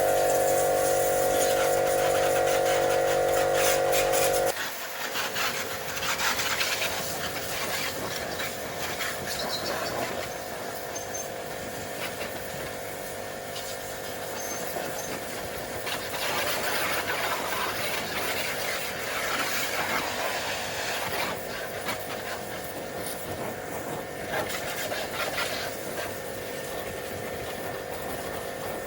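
A machine runs with a steady, loud hum and cuts off abruptly about four and a half seconds in. After that comes an uneven, rushing hiss that swells and fades.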